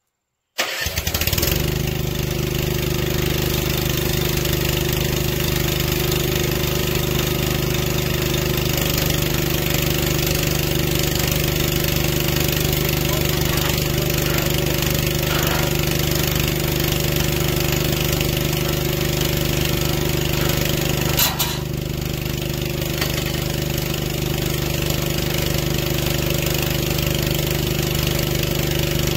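A boom lift's engine starts about half a second in and settles into a steady idle. A single sharp click sounds about 21 seconds in.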